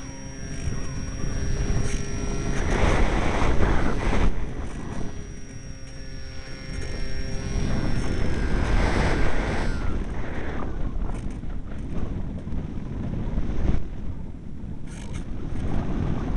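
Strong wind buffeting the microphone in gusts. Over the first ten seconds a steady high whine runs through it, then slides down in pitch and fades out.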